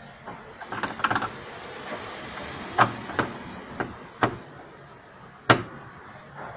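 Irregular sharp clicks and knocks of a Phillips screwdriver and fingers working at the screws of a refrigerator's plastic thermostat cover, the loudest knock about five and a half seconds in.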